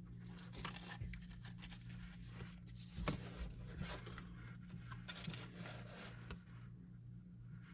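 A strap being pulled through the plastic tabs of a holster: soft rustling and scraping with small clicks, and one sharper knock about three seconds in, over a faint steady low hum.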